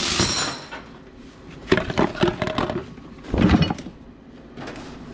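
Steel chain clanking and rattling as it is handled, in three bursts with a short metallic ring at the first.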